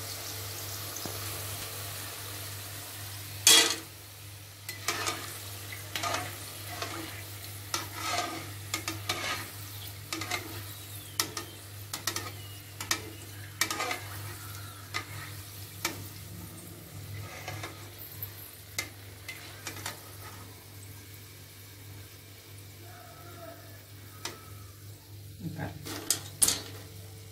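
Oil sizzling in a deep kadai as fried field-bean kernels are scooped out with a steel perforated skimmer, the skimmer knocking and scraping against the pan, one sharp knock about three and a half seconds in and lighter clinks every second or so after. Near the end a quick clatter of metal as the kernels are tipped into a steel colander.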